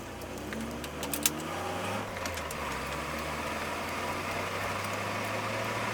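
Nissan S13 240SX engine pulling under acceleration. Its pitch rises over the first two seconds, then holds roughly steady as it gets louder, with a couple of sharp clicks about a second in.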